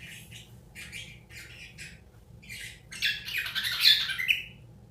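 Cockatiels calling: a string of short chirps through the first three seconds, then a louder burst of squawking chatter about three seconds in that ends in a rising chirp.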